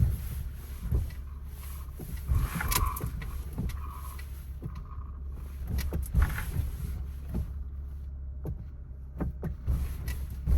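Cabin road noise of a 2012 Toyota Sienna minivan being driven: a steady low rumble broken by occasional sharp knocks and clunks a second or more apart.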